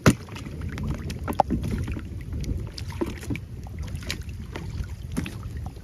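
Wind buffeting the microphone over heavy typhoon rain, with a sharp knock at the start and scattered lighter taps and knocks as buckets and gear are handled.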